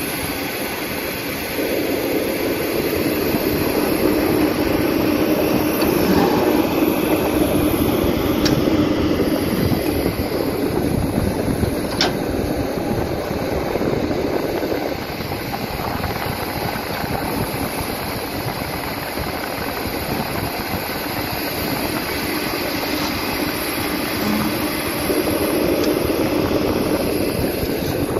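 Hydraulic excavator's diesel engine running under load as it digs and swings, with a steady low hum that grows louder for two long stretches, and a couple of sharp clicks.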